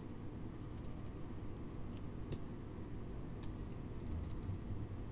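Faint, scattered clicks and taps of small baitcasting-reel parts being handled and fitted by hand, with a few sharper clicks about two and three and a half seconds in.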